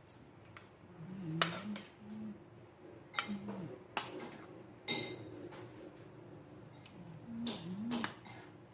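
A metal spoon clinking and scraping against an aluminium frying pan and a plate as fish in sauce is served out, with about five separate knocks spread over several seconds.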